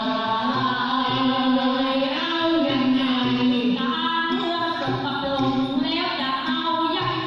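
A group of women singing a Thai folk song together, with long held, gliding notes over a steady low beat.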